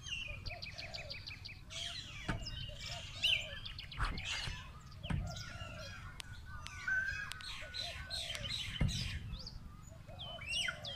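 Several small birds chirping and trilling at once, in quick high notes and rapid runs. A few dull knocks and a steady low rumble sit underneath.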